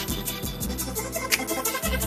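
Hip hop music with a steady beat: rapid high ticks over deep bass notes, with a sharp hit at the start and another about a second and a half in.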